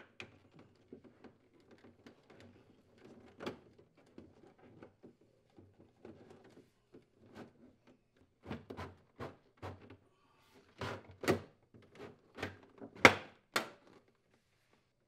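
Plastic refrigerator evaporator cover being worked into place by hand: faint rubbing and light ticks, then a run of sharp plastic knocks and clicks as it is pushed home, the loudest knock a little before the end.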